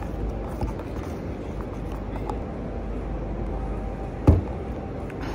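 Steady low-pitched rumbling background noise with one sharp thump a little over four seconds in.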